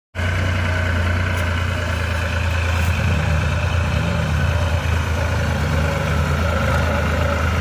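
Diesel tractor engine running steadily under load as it hauls a trailer loaded with earth over a dirt track.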